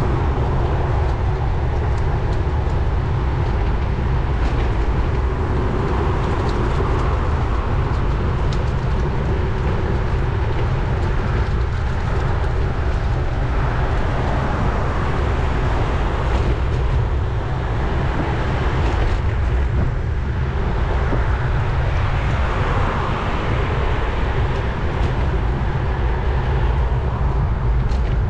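Steady wind rush and road rumble on a bicycle-mounted camera while riding, mixed with the sound of motor traffic.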